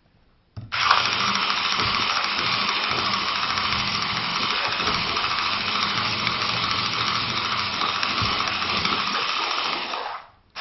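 MASHA electric mixer running steadily as its impeller and blade blend pancake batter in a bowl. It switches on about half a second in and stops shortly before the end.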